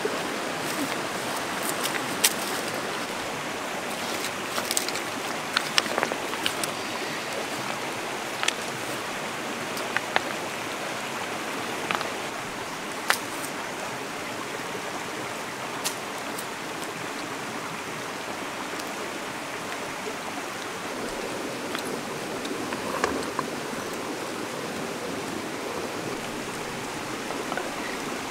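Steady rushing of a shallow river flowing over rocks, with scattered sharp clicks and snaps, most of them in the first half.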